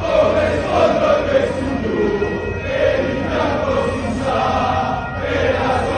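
A large crowd of football ultras singing a chant together in unison, many voices carrying one melody.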